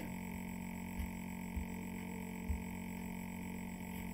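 Steady electrical hum with a few fixed tones, the recording's background noise, broken by three faint low knocks about one, one and a half and two and a half seconds in.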